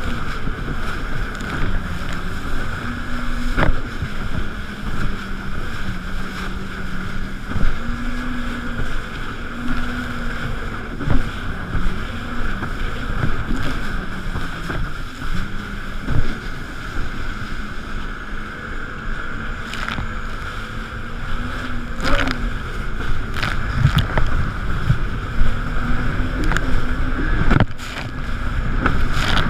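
Jet ski engine running at speed, its pitch rising and falling as the throttle changes, with splashing water and repeated thuds as it crosses choppy sea.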